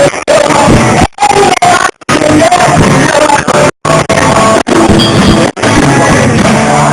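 Live blues band jamming, possibly with a singer, recorded very loud and badly. The sound drops out completely for a split second several times.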